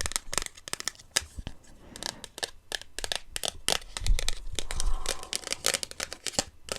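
Blind-box packaging being handled close to the microphone: an irregular run of crinkling and tearing sounds with small clicks.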